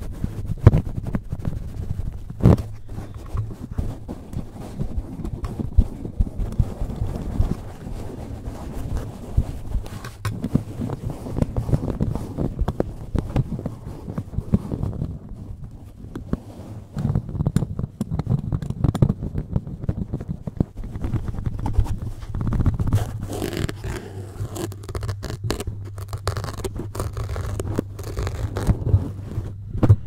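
Black foam rubbed and scratched against a microphone's mesh grille, close to the mic: a steady run of scraping and crackling over a low handling rumble.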